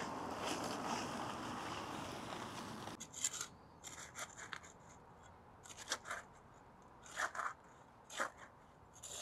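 Soil pouring out of a plastic bag: a steady rustle with the plastic crinkling, cutting off about three seconds in. Then a handful of short, scratchy crunches spread over the rest.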